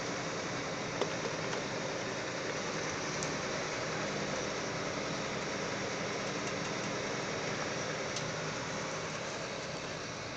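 Diesel engine of a Dashmesh combine harvester running steadily.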